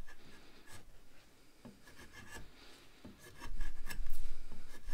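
Condor Heavy Duty Kukri's steel blade shaving a wooden board: short, dry scraping strokes of edge on wood. The strokes grow louder and heavier for the last second and a half.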